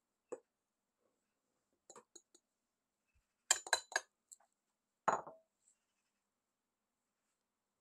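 A glass bowl clinking against a stainless steel mixing bowl as flour is tipped in: a few light taps, then a quick run of about four sharp clinks, and one heavier knock with a short ring about five seconds in.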